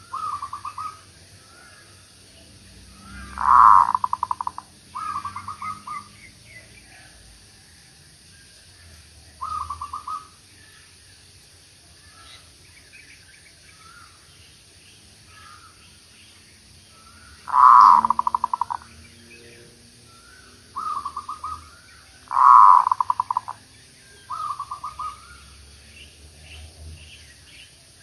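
Caged zebra dove decoy cooing: about eight short bursts of fast staccato coos, a few of them much louder, with faint chirps of other birds in between.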